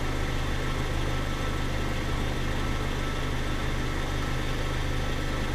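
Car engine idling steadily: a low, even hum that does not change, with a faint thin steady tone above it.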